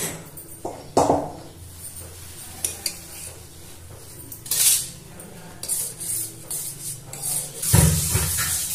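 Metal utensils clinking and knocking against a cooking pot: a few separate knocks, the sharpest about a second in with a short ring, over a low steady hum. Near the end comes a louder stretch of low rumbling noise.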